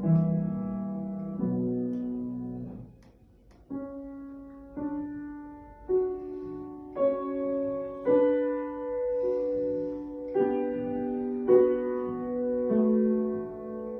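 Piano playing a slow, lyrical piece: struck notes and chords that ring and fade, about one new note or chord a second, with a short pause about three seconds in.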